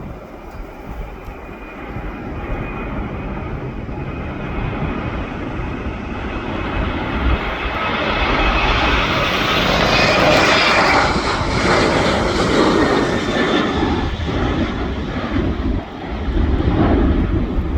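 Airliner's engines growing louder to a peak about ten seconds in, then fading as it passes, with a faint whine that drops in pitch after the peak. Wind buffets the microphone near the end.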